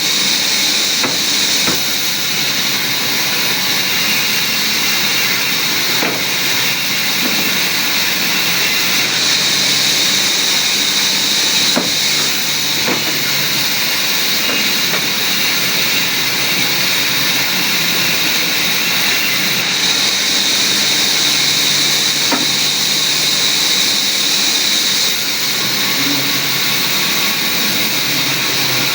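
Woodworking machine cutting wood: a loud, steady hissing noise with a high whine over it and a few faint clicks.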